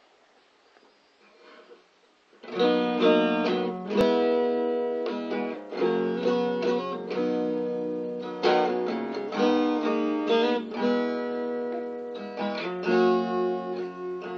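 Acoustic guitar played solo, chords plucked and strummed with the notes left to ring. It starts about two and a half seconds in, after near silence.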